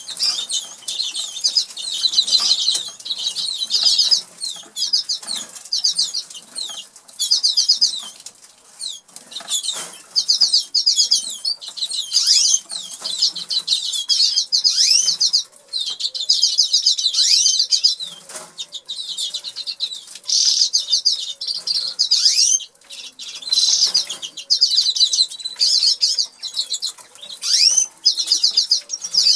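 Canaries singing: rapid high trills and chirps in long phrases broken by short pauses, over scattered small clicks and rustles.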